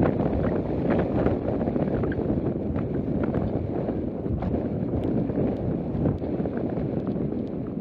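Wind buffeting the microphone: a steady low rumble with scattered small clicks and crackles.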